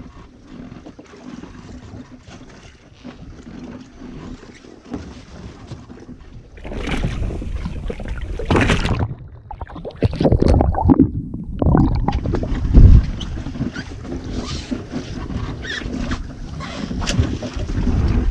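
Wind and water noise aboard a small boat at sea. It is faint at first, then turns louder and rushing from about seven seconds in, with a few sharp knocks and thumps.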